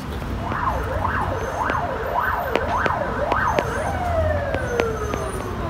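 Emergency vehicle siren in a fast rising-and-falling wail, about five sweeps in three and a half seconds. About four seconds in it becomes one long falling tone as the siren winds down.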